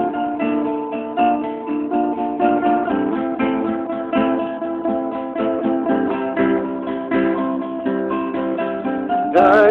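Acoustic guitar played alone, notes plucked and strummed in a steady flow between sung lines; a man's singing voice comes in right at the end.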